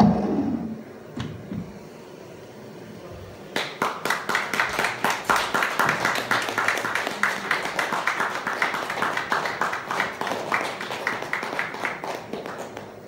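A small audience applauding with dense hand claps, starting a few seconds in and thinning out near the end. Just before it, the last synthesizer tone glides down in pitch and stops.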